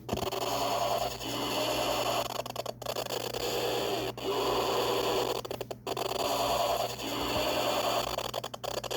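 A computer making a strange warbling, buzzing noise that repeats in stretches of one to two seconds, each broken off by a brief drop-out, over a steady low hum.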